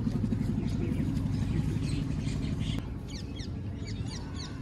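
An engine running with a low rapid throb that drops away about three seconds in. Birds then call in a run of short, high, descending chirps.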